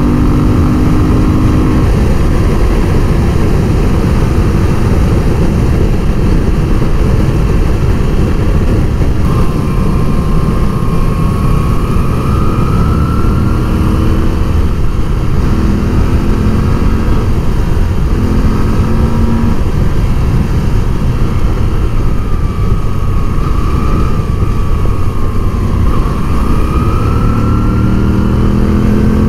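Moto Guzzi V7 850's air-cooled transverse V-twin running under way, recorded from the bike with wind rushing over the microphone. Its pitch rises and falls several times as the throttle opens and closes.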